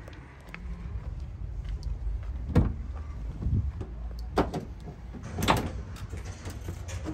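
Van doors being opened and shut, with several sharp knocks and slams over a low steady rumble. The loudest knock comes about two and a half seconds in.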